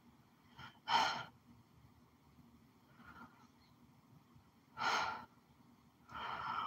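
A woman breathing audibly between sentences: two short breaths or sighs about four seconds apart, and another breath near the end just before she speaks again.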